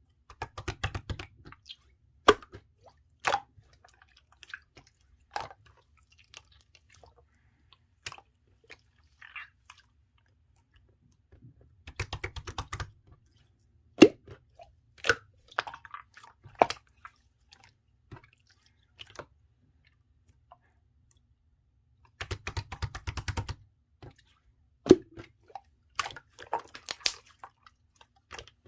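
Clear slime being squished and pressed by hand: wet sticky pops and clicks. Three runs of rapid crackling clicks stand out, near the start, about twelve seconds in and about twenty-two seconds in.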